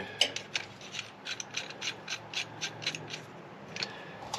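Hand ratchet wrench clicking as a fitting is turned: a quick run of even clicks, about five a second, for about three seconds, then a couple of single clicks near the end.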